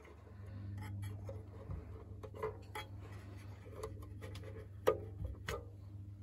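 Steady low electrical hum from running equipment, with a dozen irregular sharp clicks and knocks over it, the loudest about five seconds in.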